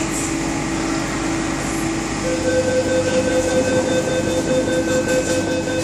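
MTR South Island Line S-train door-closing warning tone: a steady pitched beep starts about two seconds in and holds for about three and a half seconds, then stops as the doors are about to shut. Under it is a steady low hum in the car.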